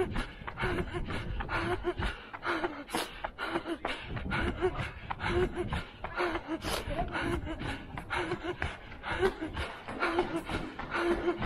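A runner breathing hard at sprint pace, rhythmic panting with short voiced exhalations, over quick regular footfalls on pavement.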